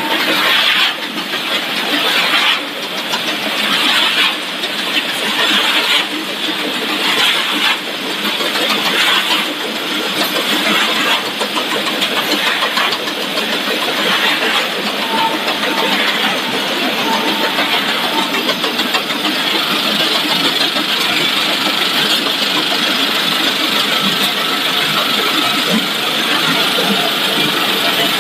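Snack-food extrusion line machinery running: extruder, cutter, conveyors and fryer together make a loud, steady mechanical noise with hiss. It swells and eases about every two seconds at first, then settles to an even drone.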